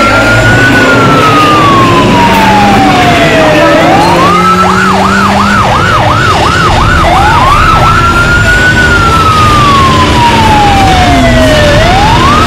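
Siren sounding a wail that rises quickly and falls slowly over about three seconds, switching about four seconds in to a fast yelp of roughly four to five warbles a second, then back to the slow wail.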